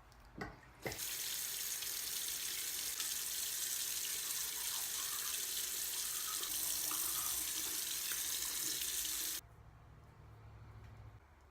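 Two short clicks, then water running steadily from a tap, cutting off abruptly near the end.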